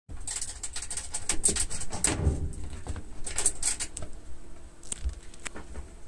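A small animal scratching and scrabbling about inside a top-loading washing machine: a quick, irregular run of scratches and taps for about four seconds, then only a few now and then.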